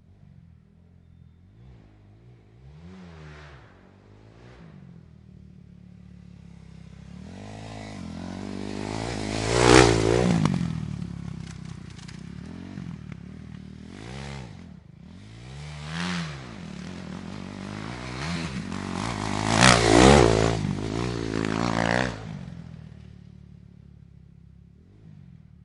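Dirt bike engines revving up and back down over a low steady idle, several times. The loudest runs come about ten and twenty seconds in, and the sound dies away near the end.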